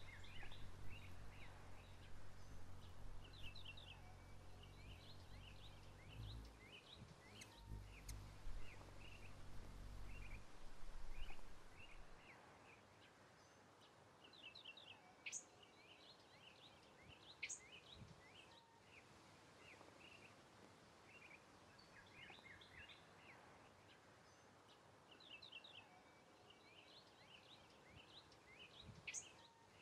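Faint background with repeated short bird chirps, some in quick runs of three or four. A low rumble is under the first ten seconds or so, then drops away.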